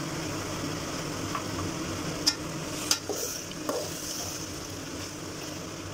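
Chicken masala sizzling in a metal pot while a metal ladle stirs freshly added yogurt into it, with two sharp clicks of the ladle against the pot about two and three seconds in.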